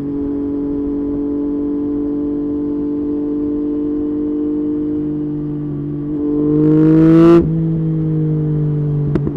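Yamaha MT-09's inline three-cylinder engine idling steadily, then revved once about six seconds in: the pitch climbs for over a second before the throttle snaps shut and it drops straight back to idle. A short sharp click near the end.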